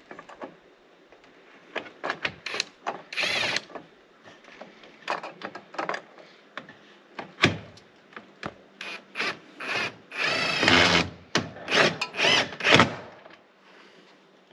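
Power drill driving a screw into a wooden 2x4 in short stop-start bursts, with longer runs of the motor about three seconds in and a little past the middle. The screw is going in hard, which the user wonders may be a knot in the wood.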